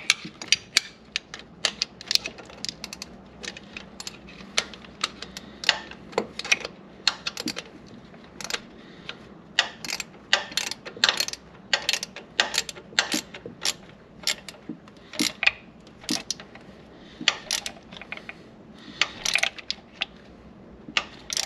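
Hand ratchet wrench clicking in short, irregular runs while tightening the bolts that hold an ignition coil in place.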